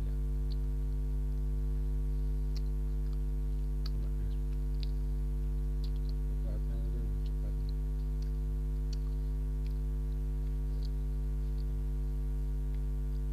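Steady low electrical mains hum with overtones, the loudest sound throughout. Faint, scattered small clicks from the mouth come through as a man chews soft steamed bakpia.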